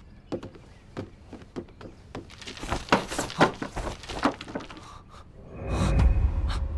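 Animated sound effects: a run of sharp cracks and knocks that grows denser and louder, then a low rumble that swells near the end.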